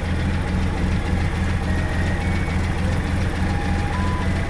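Swapped-in Daihatsu engine of a Mitsubishi Jetstar van idling steadily, heard close from the open engine bay under the seat. A few faint electronic beeping notes step up and down in pitch over it.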